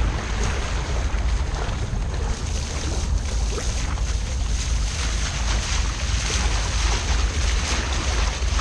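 Water rushing and splashing around a sea kayak's hull and paddle blade as it is paddled through choppy water, with a steady low rumble of wind on the microphone.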